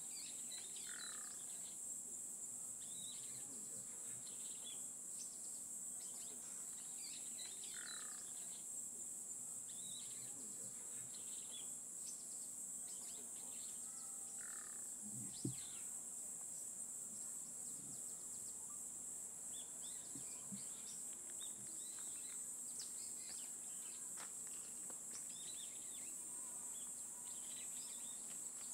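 Steady, high-pitched chorus of insects, with scattered short bird chirps and a single low knock about halfway through.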